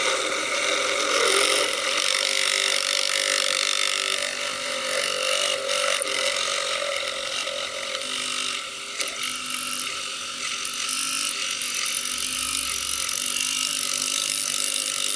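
Tire Razor tyre-truing machine running steadily, spinning a plastic slot car wheel in its mini lathe while the cutting blade shaves plastic off it.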